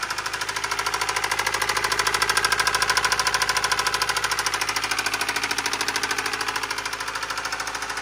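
Subaru flat-four boxer engine running with a loud, rapid, evenly spaced metallic knock, about ten knocks a second. This is rod knock: the connecting rod bearings are worn metal to metal after oil starvation, not piston slap.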